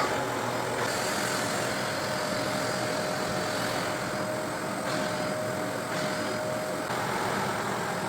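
Shark vacuum cleaner running steadily, its motor and airflow making a constant noise as it vacuums a fabric couch. A steady tone sits on top of the noise from about a second in and drops out about seven seconds in.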